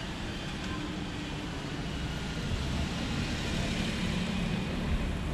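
A small van driving slowly past at close range, its engine and tyre rumble growing louder through the second half.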